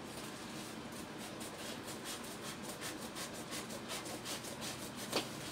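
A kraft padded mailer envelope being opened by hand: faint, quick scratchy rubbing and tearing of paper, with one sharper click about five seconds in.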